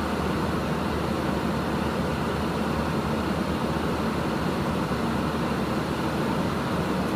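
Steady rushing and humming of an airliner cockpit in cruise flight: airflow noise and air-conditioning, unchanging throughout.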